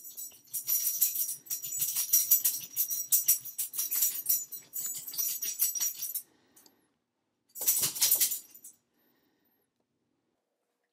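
Soldering flux sizzling and crackling under a hot soldering iron tip as it heats the solder joints of a drone's video transmitter to desolder it. A dense crackle lasts about six seconds, then after a short pause comes a second, shorter burst.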